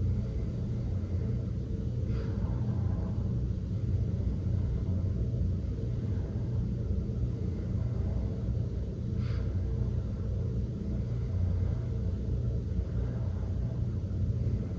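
A steady low background rumble, like room noise, with two faint breaths about two seconds and nine seconds in.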